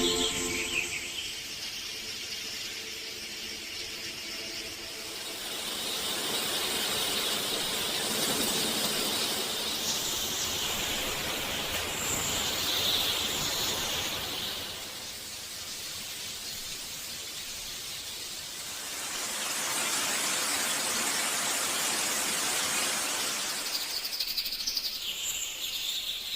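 Outdoor ambience: a steady hiss that swells and fades twice, with a few brief high bird chirps.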